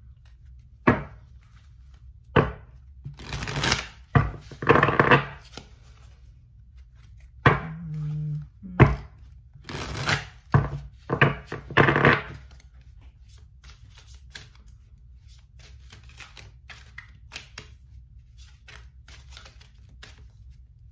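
Deck of tarot cards being shuffled by hand: a run of sharp snaps and short riffling bursts through the first twelve seconds or so, then lighter, scattered ticks of cards being handled.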